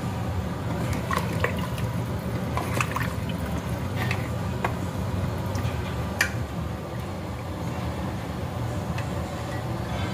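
Wooden spoon stirring vegetables in water in a clay pot: water sloshing and a few light knocks of the spoon against the pot, the sharpest about six seconds in. A steady low hum runs underneath.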